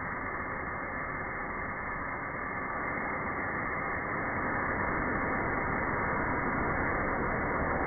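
Steady hiss of R134a refrigerant jetting out of an inverted can through its trigger dispenser valve. Turned upside down, the can sprays liquid rather than gas. The hiss gets a little louder about halfway through.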